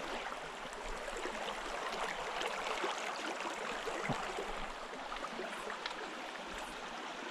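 Small mountain creek running: a steady rush of flowing water.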